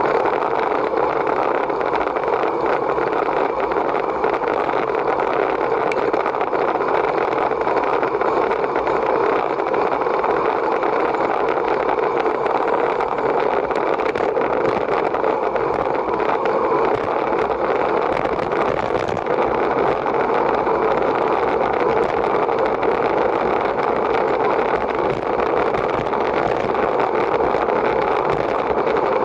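Steady rushing noise of wind and rolling tyres, as heard from a camera riding on a racing bicycle, with no changes or distinct events.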